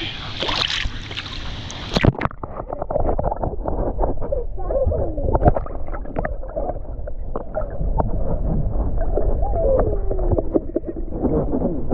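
Splashing in a pool, then about two seconds in the sound turns suddenly muffled and dull as the microphone goes under the water: gurgling, bubbling and warbling underwater sounds.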